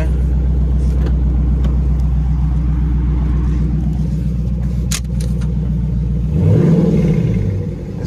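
Dodge Charger Scat Pack's 392 (6.4-litre) HEMI V8 with its mid mufflers deleted, idling loud and steady, then revved once near the end, the pitch rising and falling back toward idle.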